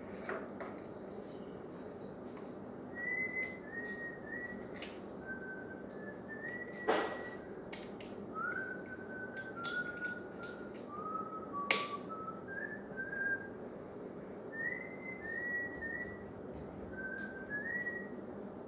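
A person whistling a slow tune, a string of short held notes stepping up and down in pitch, while working at a ceiling light fitting. A few sharp clicks and knocks come from handling the fitting, the loudest about seven and twelve seconds in.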